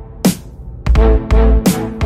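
Electronic music with a heavy bass beat and sharp snare-like hits; the bass drops out at first and comes back in about a second in.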